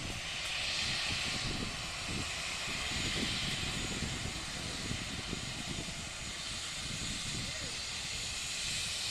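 Citilink airliner's engines at takeoff power, heard from a distance as a steady hiss that swells and eases slightly.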